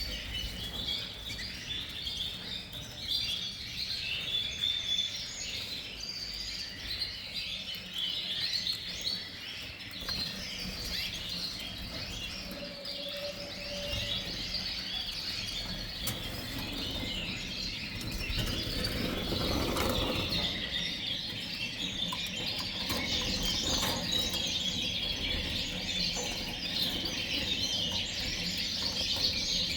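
Many red canaries chirping and singing together in a continuous, dense chorus, with a brief rustling noise about two-thirds of the way through.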